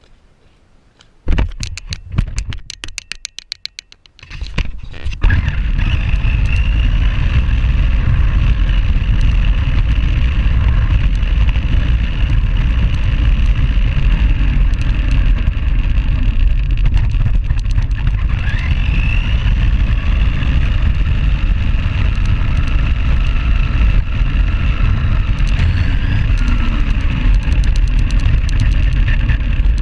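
Tamiya Grasshopper RC buggy's electric motor and gears driving, heard from a camera mounted on the car body: a loud steady whine over heavy rumble and rattle from the wheels and chassis. It starts about a second and a half in with a few seconds of rapid clicking and rattling, then runs steadily. The gears have a crunchy mesh, which the owner puts down to a motor pinion that isn't the right one.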